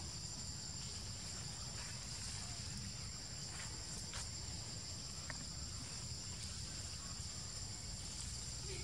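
Steady high-pitched chorus of insects, an even buzz that never lets up, with a few faint clicks near the middle.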